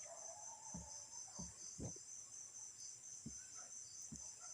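Faint, steady chirping of crickets, a high pulsing trill, with several soft low knocks.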